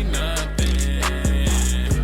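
Hip-hop music with a deep bass and a steady drum beat.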